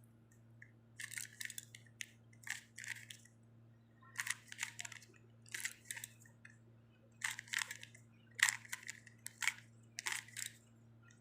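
Plastic Rubik's cube being turned by hand: a series of short clacking, scraping twists of its layers, one every half second to a second, over a faint steady hum.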